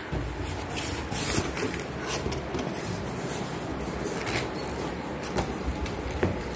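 Corrugated cardboard shipping box being handled and opened by hand: irregular rustles, scrapes and crinkles, with a sharper click near the end, over a low steady hum.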